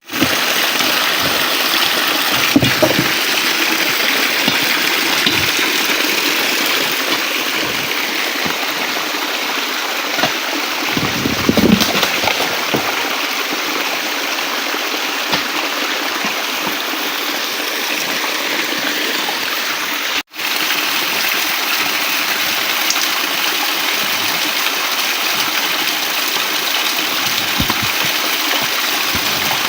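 Steady rush of flowing water, like a stream, with a few brief louder swells. It cuts out for an instant about two-thirds of the way through.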